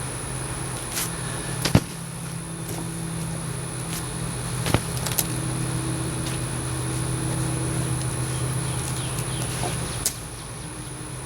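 Chainsaw engine idling steadily, with a few sharp knocks scattered through.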